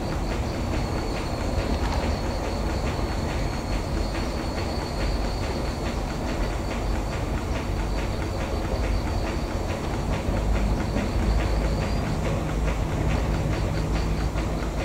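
Diesel rail-yard switcher (shunting tractor) running as it moves slowly along the yard tracks: a steady low engine rumble with an even, rapid ticking clatter.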